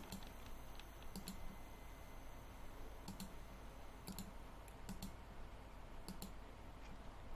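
Computer mouse clicking faintly: several sharp clicks, mostly in quick pairs about a second apart, as context menus are opened and items chosen. A steady low hum lies underneath.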